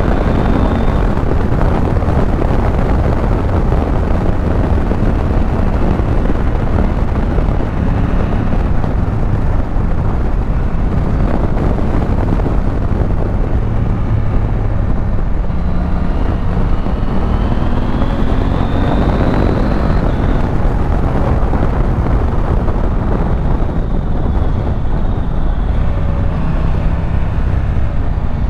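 Husqvarna Norden 901's 889 cc parallel-twin engine running under way, mixed with steady wind rush. The engine note climbs several times under acceleration, most clearly past the middle.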